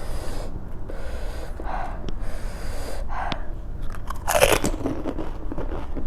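Close-up eating of pani puri: crisp puris crunched between the teeth and chewed, with a louder crunching burst about four seconds in.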